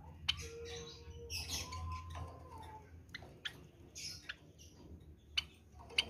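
Caged Java sparrows giving short, sharp chirps and clicks at irregular intervals.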